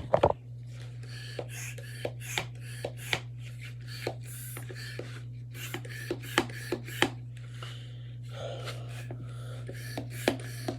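Plastic clicks and rubbing from working the pump of a Dr. Squish stress-ball maker to fill a balloon: sharp irregular clicks about once or twice a second over a steady low hum.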